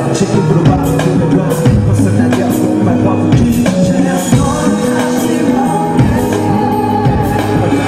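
Live pop ballad performance: a backing track with a regular beat and a man singing into a handheld microphone, heard over the venue's PA speakers.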